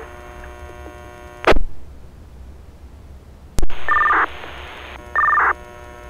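Two-way fire radio channel between transmissions. A buzzing hum is broken by a sharp click about a second and a half in and goes dead, then a second click brings it back. Two short hissy key-ups follow, each with a brief two-tone data chirp, the push-to-talk ID burst of a radio keying up.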